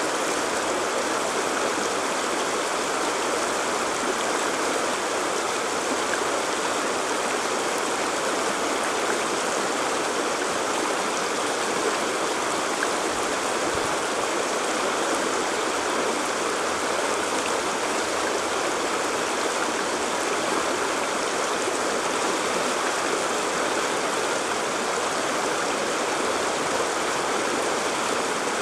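Shallow stream rushing over rocks through small riffles: a steady, unbroken rush of moving water.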